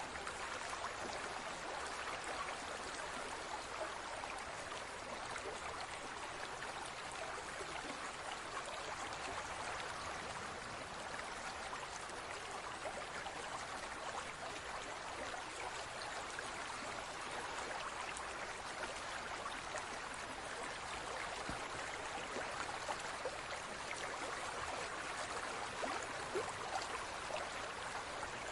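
Steady rush and trickle of water circulating in a large aquarium.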